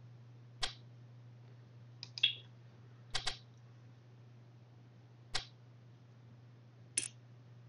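About five short, sharp clicks, spaced a second or two apart, over a low steady hum.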